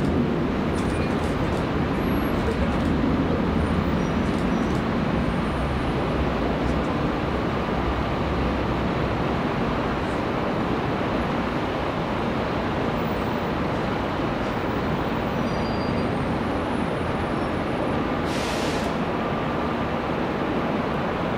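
Jet airliner engines running, heard as a steady, loud rumble heaviest in the low end that eases slightly as it goes on. A brief hiss comes near the end.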